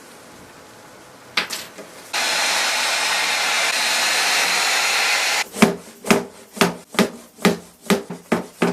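Heat gun blowing steadily for a few seconds as it softens old drawer glue, then cuts off. It is followed by a quick run of sharp knocks, about two to three a second.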